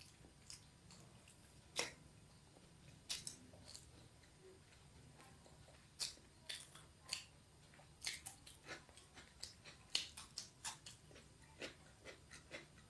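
Faint chewing and mouth sounds of someone eating chow mein noodles, with scattered short clicks that come more often in the second half.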